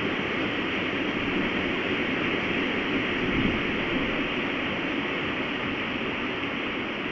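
Strong storm wind blowing steadily as an even rushing noise, swelling slightly about halfway through.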